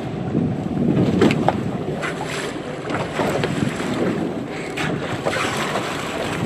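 Wind buffeting the microphone over water rushing along the bow of a moving boat. Several short splashes come through as dusky dolphins surface in the bow wave.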